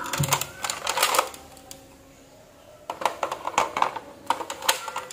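Plastic clicks and rattles of a Nerf Retaliator blaster being handled as its orange clip magazine is worked into the magazine well: a cluster of clicks in the first second, a short lull, then a quicker run of clicks.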